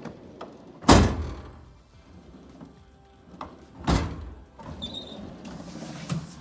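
Steel drawers of a Matco 5S rolling tool cabinet sliding and banging shut: two loud bangs about three seconds apart, the first the loudest, with lighter clicks and sliding between.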